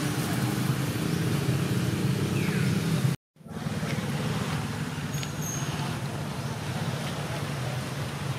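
Steady low rumble of road traffic, broken by a sudden dropout to silence for a moment about three seconds in, then resuming; a faint short high chirp sounds about five seconds in.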